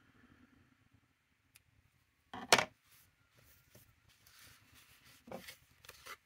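Scissors and craft materials handled on a tabletop: one sharp clack of the scissors about two and a half seconds in, then soft rustling of paper and lace trim and a couple of light knocks near the end as a plastic glue bottle is picked up.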